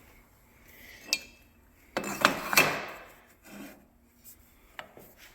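Steel belt grinder parts being handled: a light metallic clink that rings briefly about a second in, then a louder clatter and scrape of metal on metal about two seconds in, followed by a few small taps.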